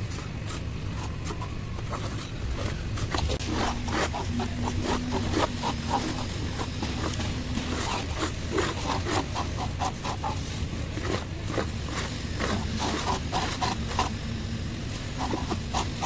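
Plastering trowel scraping and rubbing over wet cement plaster along an aluminium straight edge, in runs of quick repeated strokes, over a steady low rumble.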